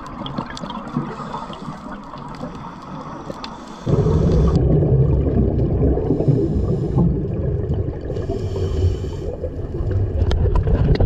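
Underwater scuba sounds: a diver breathing through a regulator, with exhaled bubbles gurgling past the camera. About four seconds in, the sound changes abruptly to a louder, deeper bubbling rush.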